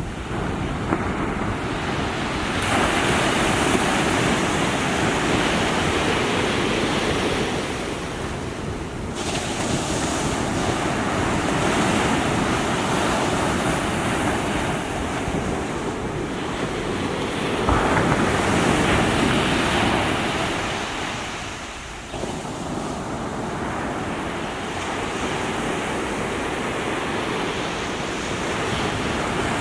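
Small sea waves breaking and washing up the shore, the surf swelling anew every six to eight seconds.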